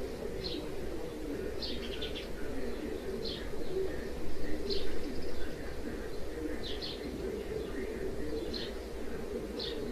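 Small birds chirping: short high chirps about once a second, over a steady low hum.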